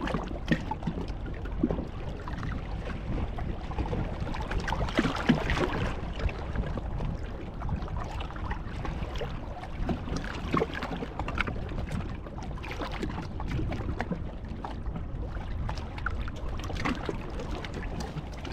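Wind buffeting the microphone outdoors, a steady low rumble with many short sharp clicks scattered through it.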